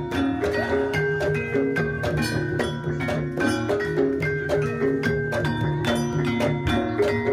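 Gamelan music accompanying a jaranan dance: struck metal keys and gongs play short repeating pitched patterns over a busy run of drum strokes.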